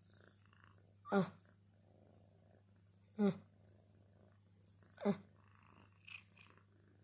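A cat meowing three times in short calls, about two seconds apart.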